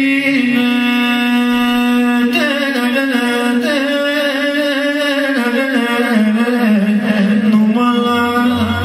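A man singing long, wavering held notes into a microphone, amplified through PA speakers in a small hall. A low musical accompaniment comes in near the end.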